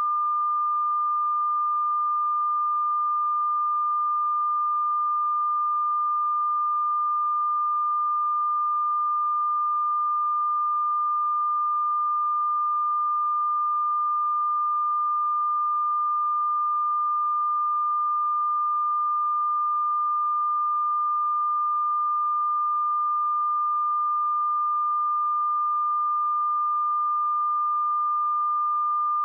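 A pure 1202 Hz sine-wave test tone, one steady unbroken pitch at a constant level.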